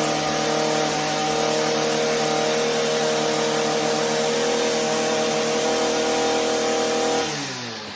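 Stihl two-stroke string trimmer engine running at a steady pitch, the engine revving freely now that its carbon-clogged spark arrestor screen has been cleaned. About seven seconds in, the revs fall away and it gets quieter.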